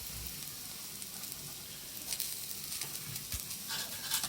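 Garlic shoots sizzling on a thick steel griddle, a steady frying hiss, with a few light clicks near the end.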